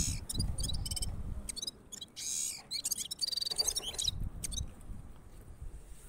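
A caged songbird, a gulsar, singing a string of high chirps, with a harsh note about two seconds in and a quick trill a second later, over a low rumble.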